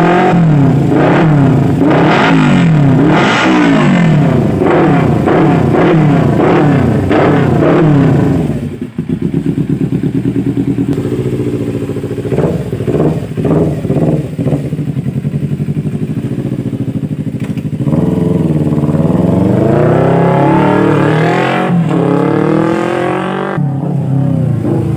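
Kawasaki Ninja 250 FI parallel-twin engine breathing through a replica Akrapovic slip-on muffler, revved in a run of quick throttle blips for about eight seconds. It then drops to idle with a few short blips, and near the end climbs in a longer rev before falling back.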